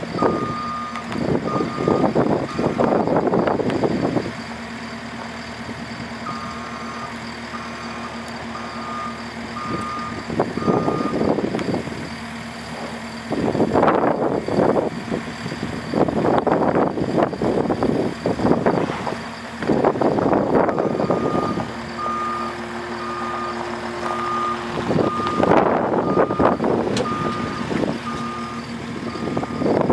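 JCB skid steer's diesel engine running and revving under load as it lifts a loaded bag off its pallet forks and backs away, its backup alarm beeping steadily in three spells, at the start, from about 6 to 11 seconds, and again from about 21 seconds on.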